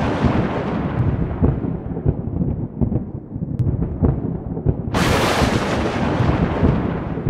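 Thunder: a long rolling rumble that dies away, then a fresh sharp crack about five seconds in that fades into another rumble.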